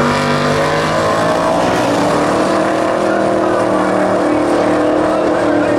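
Two drag-race cars, a vintage dairy delivery truck and a Chevy II Nova, running at full throttle down the strip after the launch. The loud engine note rises in pitch over the first couple of seconds, then holds steady.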